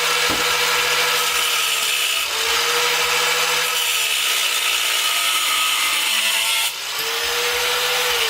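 4.5-inch angle grinder with a cut-off wheel cutting through quarter-inch mild steel bar: a steady, harsh grinding hiss over the motor's whine, which eases and picks up again about two seconds in and once more near seven seconds.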